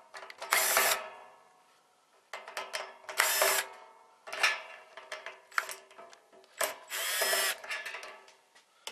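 Power drill backing out screws in three short runs of about half a second each, with small clicks and rattles between them.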